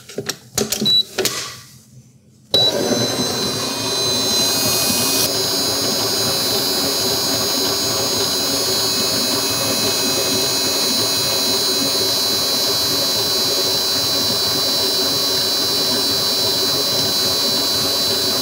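A few knocks and clatters, then about two and a half seconds in a stand mixer's motor switches on and runs steadily with a high whine, its paddle beating peanut butter into the creamed butter and sugar for cookie dough.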